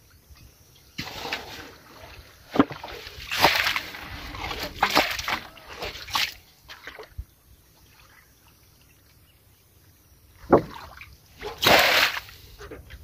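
Muddy water splashing and sloshing as it is scooped up and poured out of a metal basin into a shallow puddle. The splashes come in a run of bursts, then stop for a few seconds, and two more come near the end.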